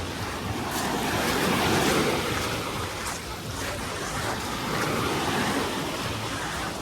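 Small sea waves breaking and washing up the beach, the surf noise swelling and easing off twice.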